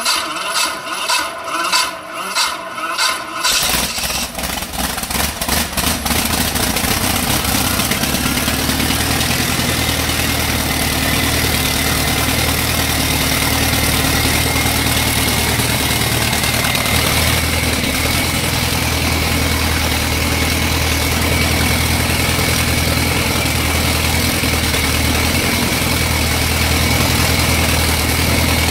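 Rover Meteorite Mk204 18-litre V8 petrol engine starting: it turns over in uneven pulses for about three and a half seconds, then catches and runs steadily, with a thin high whine above the engine note from several seconds later.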